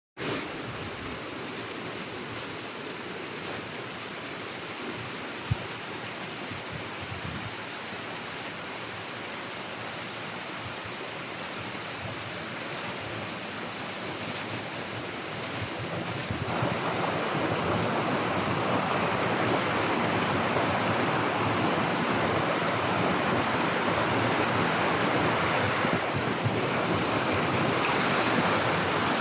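Steady rush of moving water, an even hiss that grows louder a little over halfway through, with a single sharp click about five seconds in.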